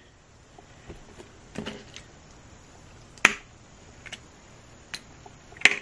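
A few small sharp clicks and sticky smacks from slime-covered hands handling a doll, the loudest about three seconds in.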